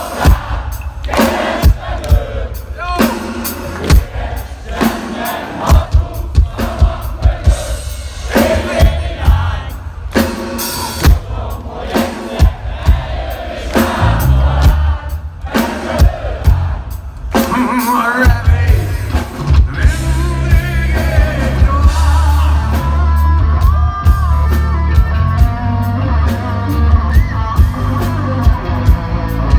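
Heavy metal band playing live through a PA: drum kit hits in the first half, then bass and electric guitars come in fully with a male singer about halfway through.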